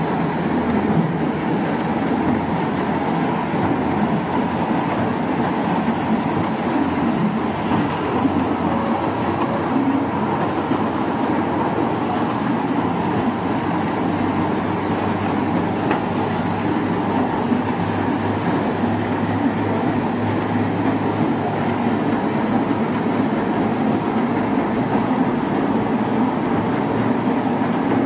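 4-foot spindle veneer peeling lathe running, turning a log on its spindle chucks against the peeling knife: a steady, loud machine noise with no pauses.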